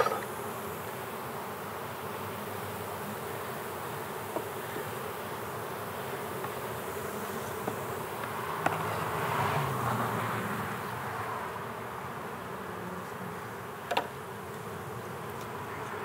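A cloud of honey bees flying loose around an observation hive, buzzing steadily and swelling louder about halfway through. A few short sharp knocks cut through it, the loudest right at the start and near the end.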